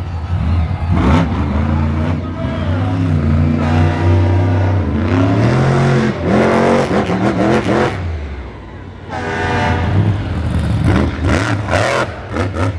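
Monster truck engine revving hard during a freestyle run, the pitch swinging up and down as the throttle is worked. It backs off briefly past the middle, then climbs again in a rising rev.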